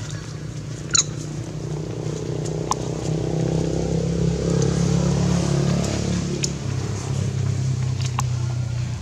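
Low, steady hum of a motor vehicle's engine, swelling in the middle and easing off toward the end. A short sharp high chirp sounds about a second in, with a few fainter clicks later.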